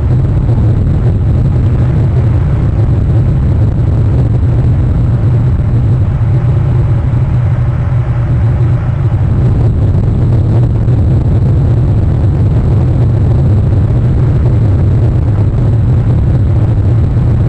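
Loud, steady low rumble of rain and wind noise on an outdoor nest camera's microphone.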